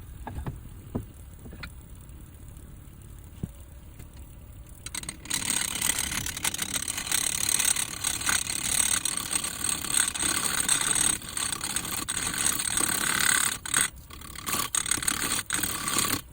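Wood lathe turning plum wood, a gouge cutting into the spinning piece: a rough, steady scraping noise that starts about five seconds in, after a few light knocks.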